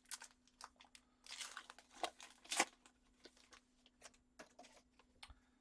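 A trading-card pack wrapper being torn open and crinkled by hand: a run of sharp crackles, thickest and loudest a little after a second in, then a few fainter ones.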